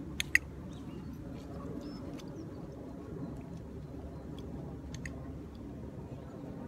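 A handheld dog-training clicker clicks twice in quick succession, about a quarter-second in, marking the dog's correct position beside the handler. A fainter click comes about five seconds in, over a steady low rumble.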